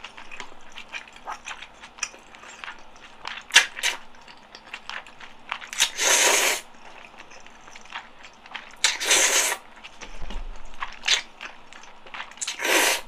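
Close-miked eating of black-bean-sauce noodles: three loud slurps, each about half a second long and roughly three seconds apart, with wet chewing and small mouth clicks in between.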